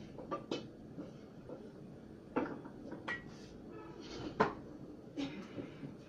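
Household clatter: a handful of sharp knocks and clinks, some briefly ringing, the loudest about four and a half seconds in, over a low steady background hum.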